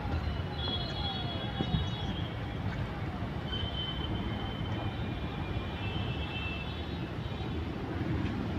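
Steady low outdoor background rumble, with faint high thin whistling tones a few times: once about a second in, and again through the middle.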